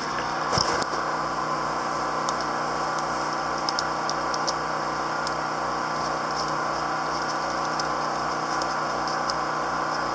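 Generator engine running steadily, a continuous hum with a low, evenly pulsing throb underneath; a couple of light clicks just after the start.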